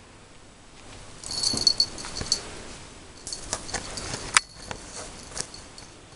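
Yorkshire terrier puppy giving short, high-pitched yaps and little barks: a quick run of them about a second in, then scattered single ones, the sharpest near four and a half seconds in.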